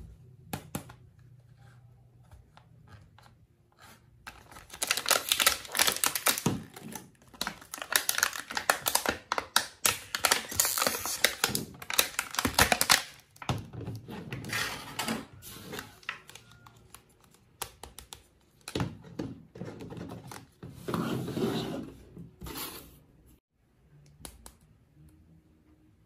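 Thin clear plastic bag crinkling and tearing as it is opened by hand, in dense crackling bursts for several seconds, then shorter bouts of rustling and handling further on.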